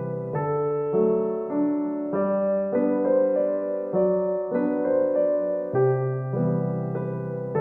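Background music: slow, gentle piano (electric piano sound), bass notes held under changing chords and melody notes.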